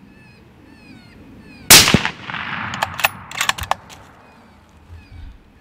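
A single suppressed .243 rifle shot about two seconds in, with a short echoing tail, followed about a second later by a quick run of sharp clicks. Small birds chirp faintly throughout.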